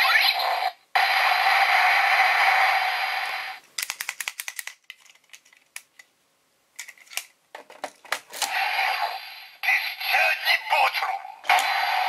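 Kamen Rider Build DX toy driver playing its electronic sound effects and music, which stop about three and a half seconds in. A Full Bottle toy then rattles in a quick burst of clicks as it is shaken, a few clicks follow as it is handled, and from about eight seconds the toy plays an electronic voice call over music.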